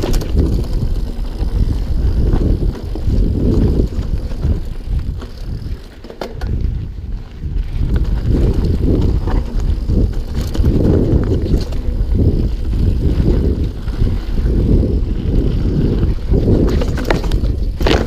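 Mountain bike ridden fast down a rough dirt trail: tyres and frame rumbling and rattling over rocks and roots, with a few sharp knocks. The rumble eases briefly about six seconds in.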